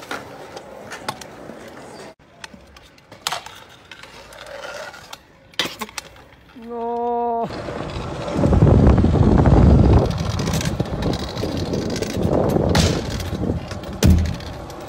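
Stunt scooter wheels rolling with a loud rumble over pavement and wooden decking, with sharp clacks of the deck and wheels striking ledges and the ground several times.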